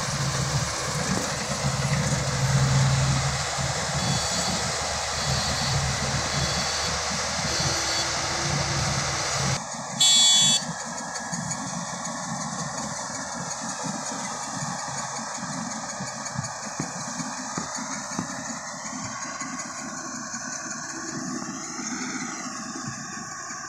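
Combine harvester engine running steadily as it works the rice field. About ten seconds in there is a short loud blip, and the sound changes abruptly to a quieter, more distant engine hum.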